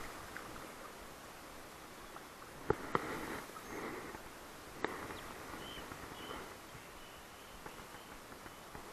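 Quiet ambience beside shallow water, with a few sharp clicks and soft rustles from handling a spinning rod and reel, and a few faint high chirps about two-thirds of the way through.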